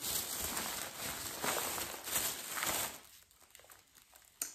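Thin plastic carrier bag rustling and crinkling as hands rummage through it for about three seconds, then it goes quieter, with one sharp click near the end.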